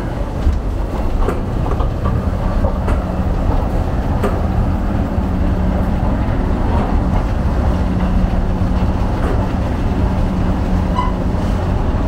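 Escalator running while being ridden upward: a steady low rumble with a constant hum, and a few faint clicks from the moving steps.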